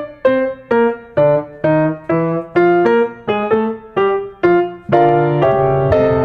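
Background music: a piano-like keyboard melody of single notes struck about twice a second, each ringing and fading, with a sustained chord about five seconds in.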